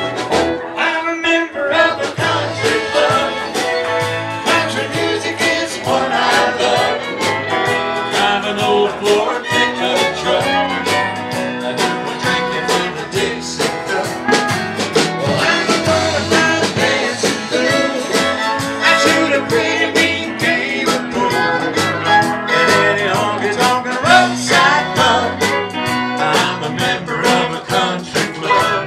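Live country band playing a country song with guitars and fiddle over a steady drum beat.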